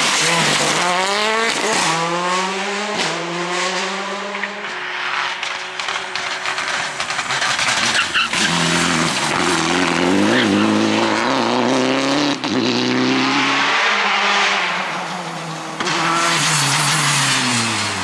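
Rally cars taking a corner one after another, engines revving hard and rising through the gears, with sharp cracks at the shifts. Engine notes ease off for the bend and tyre squeal comes in.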